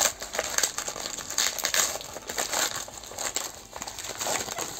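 Plastic toy packaging being handled, crinkling with many small, irregular crackles and clicks.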